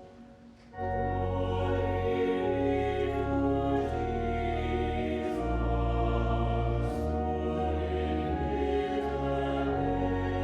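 Sacred music: a choir singing with organ accompaniment, in slow sustained chords with held low notes that change every second or two. A short hush in the first second, then the music comes back in.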